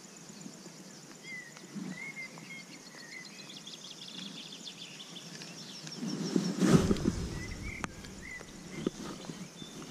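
Small birds chirping in short calls, over a thin high ticking trill, with a brief low rumble on the microphone about two thirds of the way through.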